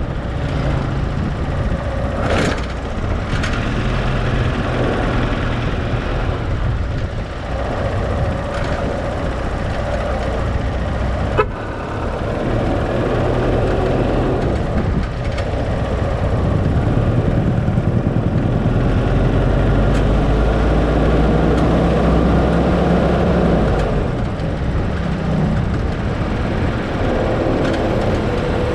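A vehicle being driven: steady engine and road rumble, with the engine pitch rising and falling. There is one sharp click about eleven seconds in.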